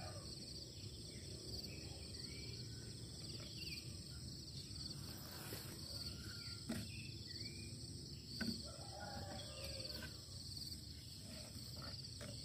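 Faint dawn countryside ambience: a steady, high-pitched insect chirring with scattered short bird chirps. Two soft knocks about seven and eight and a half seconds in.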